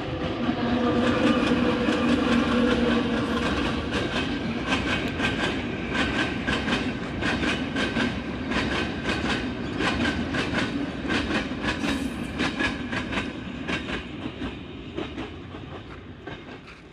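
Freight train of hopper wagons crossing a railway bridge overhead: a heavy rumble at first, then a steady run of wheels clicking over the rail joints, fading near the end as the train moves off.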